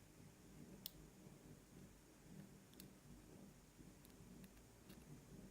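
Faint, isolated clicks of small metal lock parts being handled while pin stacks are taken out of a lock cylinder: about five light ticks, the sharpest about a second in.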